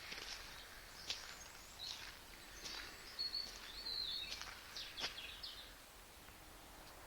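Small birds calling with short, high chirps and whistles, several in the first five seconds, among a few sharp clicks; quieter toward the end.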